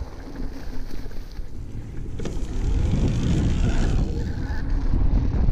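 Wind noise on the microphone and the rumble of a Haibike DH 9.0 electric mountain bike rolling down a dirt trail, its tyres and suspension rattling over the ground, getting louder about two seconds in.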